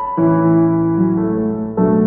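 Slow background piano music: held chords, with a new chord struck just after the start and again near the end.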